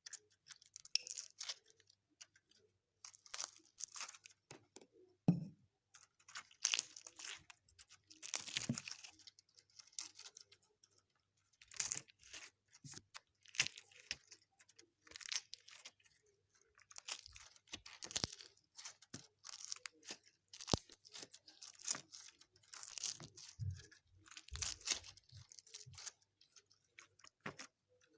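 Homemade slime being squished and stretched by hand, crackling and popping in short bursts every second or two.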